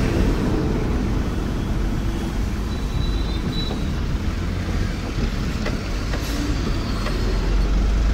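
Truck engine and road noise heard from inside the cab while driving: a steady low rumble.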